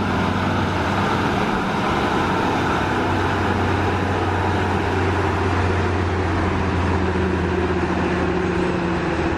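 Diesel engine of a biodiesel cog-railway locomotive running steadily with a low, even hum.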